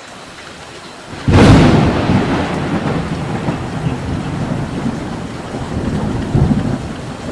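Steady heavy rain, then a thunderclap a little over a second in: a sudden sharp crack that rolls on into a long low rumble, swelling once more near the end.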